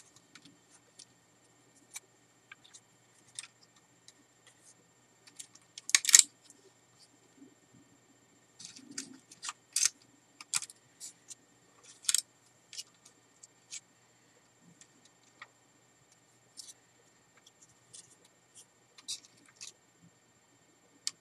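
Scattered small clicks and taps of wires and a circuit board being handled against a drone's plastic shell, with one louder click about six seconds in.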